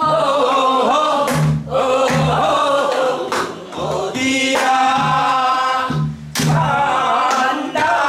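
A group of voices singing a Korean Namdo folk song together, the notes held and bent, with drumstick strokes on buk barrel drums keeping the rhythm every second or two.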